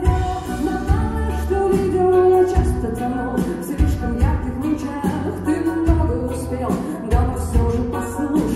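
A live band plays a song while a woman sings into the microphone, over a steady, heavy bass beat.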